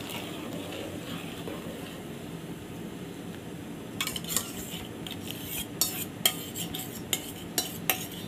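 A steel spoon stirring milk in a large aluminium pot as a milk-powder-and-milk mixture is poured in from a steel cup. From about four seconds in come a run of sharp, irregular clinks of steel against steel as the cup is scraped and tapped out over the pot.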